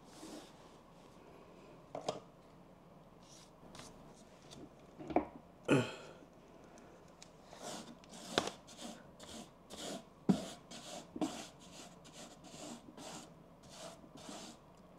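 A paint brush stroking paint onto the ribbed, fluted side of a round table: soft scratchy brushing strokes. They are sparse at first with a couple of louder scrapes around five to six seconds in, then come quicker, about two or three a second, through the second half.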